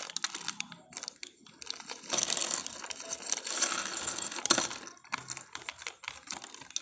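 A Lego minifigure pack being opened: packaging rustling and crinkling, with small plastic pieces clicking and clattering against each other.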